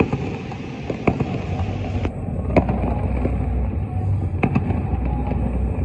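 Fourth of July fireworks going off over the city: several sharp cracks and pops, spaced irregularly, over a steady low rumble.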